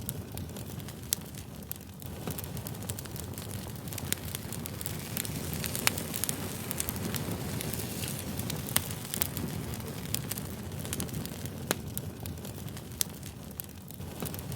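Wood campfire burning: a steady low rush of flames with frequent sharp crackles and pops, the loudest a little after a second in, about six seconds in, near nine seconds and near twelve seconds.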